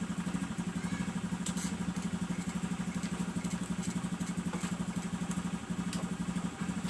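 Motorcycle engine idling with a steady, quick pulse.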